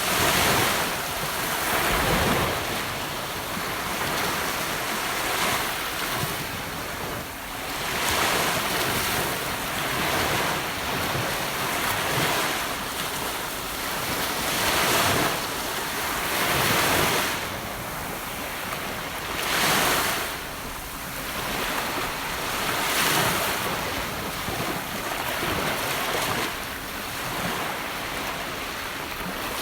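Gentle ocean waves breaking and washing up on a beach shore, a soft surf that swells and recedes every two to three seconds.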